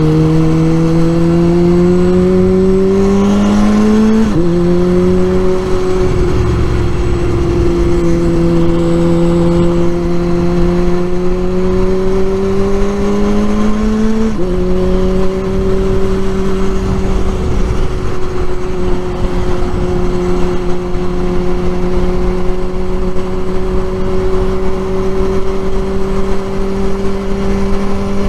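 2004 Kawasaki Z1000's inline-four engine under way, its pitch climbing as it accelerates and dropping suddenly with an upshift about four seconds in and again about fourteen seconds in, then holding a nearly steady pitch at cruising speed.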